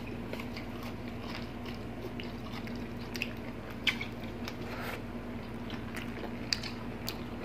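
Close-up mouth sounds of people eating with their hands: chewing and biting, with scattered short wet clicks and smacks. A steady low hum runs underneath.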